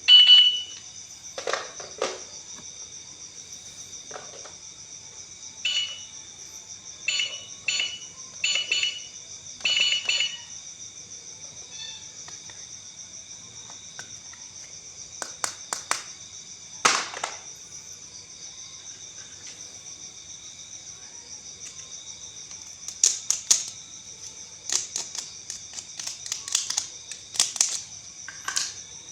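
Short electronic beeps, singly and in quick runs of two or three, and scattered sharp plastic-like clicks. Under them runs a steady high-pitched chirring of crickets.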